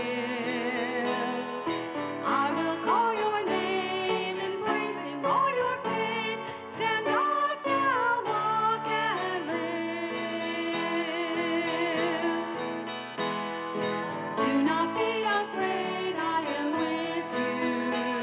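A woman singing with vibrato into a microphone, accompanied by acoustic guitar.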